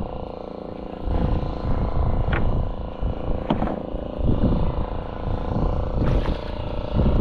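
Fishing boat's engine running steadily at sea, with a low rumble of wind and water and a few short knocks from the handline being hauled in.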